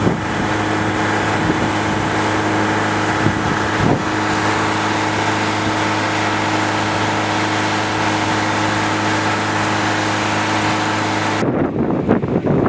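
An engine running steadily at a constant speed, with a hiss over it. About a second before the end it cuts abruptly to gusting wind on the microphone.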